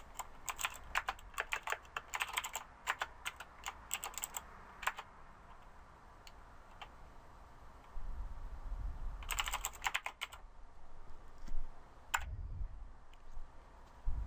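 Computer keyboard typing: a quick run of keystrokes for the first five seconds, a short burst near ten seconds and a single keystroke about twelve seconds in, with a low rumble underneath from about eight seconds.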